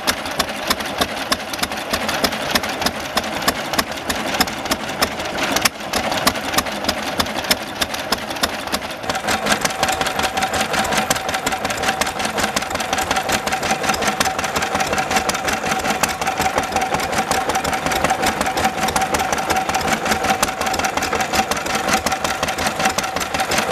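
Small single-cylinder Lister stationary engines running with a regular beat. First a hopper-cooled Lister driving a belt, then, about nine seconds in, a Lister Junior belt-driving a small water pump, with a steady high hum running alongside its beats.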